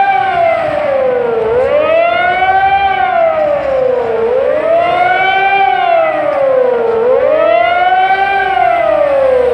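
Civil defence siren wailing, its pitch rising and falling about once every three seconds. This is the sirens sounded for Godzina W, the annual commemoration of the outbreak of the Warsaw Uprising.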